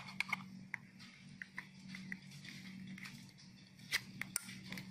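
Faint plastic clicks and taps as a belt clip is handled and fitted onto the back of a handheld two-way radio, with a sharper click about four seconds in as the clip goes on.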